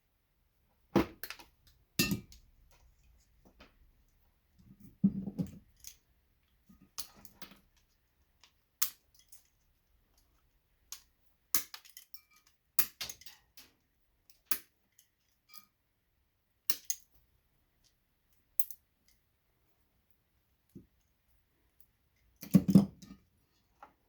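Irregular sharp clicks and snaps of pliers and wire cutters working on a Christmas light string, squeezing and pulling the bulbs and their brass sockets. A couple of duller handling noises break in, the loudest near the end.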